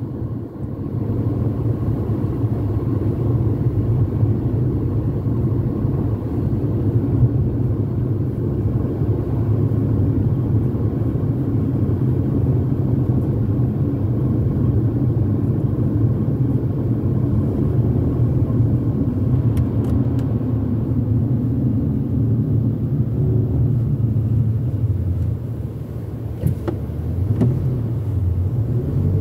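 Steady low road rumble heard from inside a moving car: engine and tyre noise while driving at moderate speed, easing slightly near the end.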